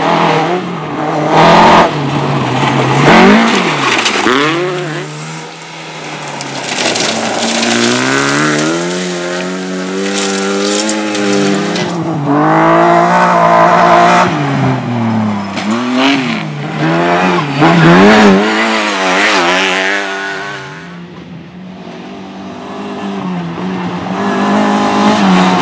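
Rally car engine revving hard, its pitch climbing and falling again and again as it accelerates and lifts off. Loud throughout, easing off briefly about three-quarters of the way through.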